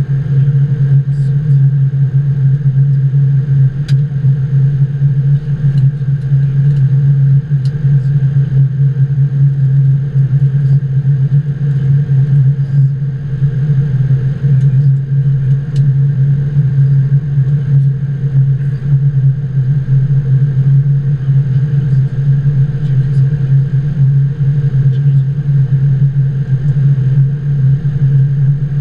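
Steady low rumble of air and engine noise inside a Boeing 777-200 flight deck during the descent, with a few faint ticks.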